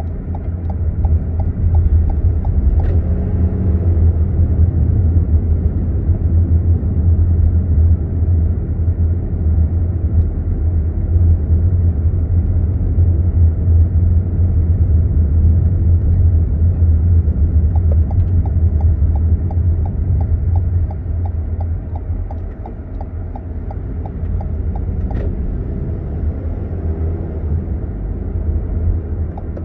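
Car cabin road and engine rumble, low and steady, while driving slowly on suburban streets. The turn-signal indicator ticks in an even rhythm at the start, again past the middle, and near the end as the car turns at junctions. There are also a couple of single sharp clicks.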